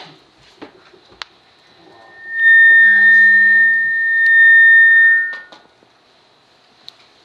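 A loud electronic tone, several steady pitches held together like a synthesizer chord, swells in about two seconds in, holds for about three seconds and fades out. A few faint clicks come before it.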